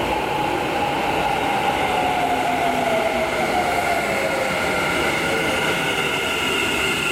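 Keikyu 1000-series electric train arriving slowly in an underground station: its traction motors whine with a pitch that falls as it brakes, over a steady running rumble, echoing in the tunnel. Higher squealing tones from the wheels on the curve grow near the end.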